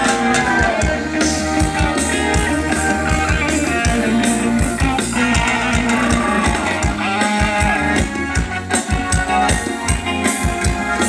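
A live band playing Thai luk thung dance music, with a steady drum-kit beat under the melody.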